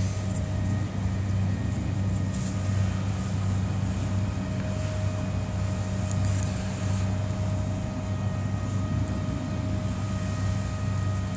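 Steady low mechanical hum, like a motor running, with a few faint clicks over it.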